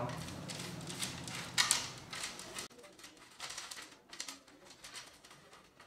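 Small aquarium gravel being stirred by hand under water, giving soft, irregular clicks and rustles of pebbles knocking together, thinning out in the second half.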